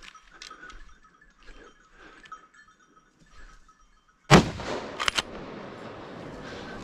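A single rifle shot about four seconds in, from a Blaser R8 chambered in .30-06: one sudden loud crack followed by a lingering echo. Two sharp clicks come close together about a second after it.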